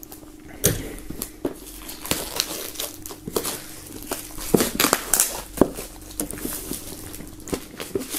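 Plastic shrink-wrap film being peeled and pulled off a flat box by hand, crinkling and crackling irregularly in many small sharp bursts.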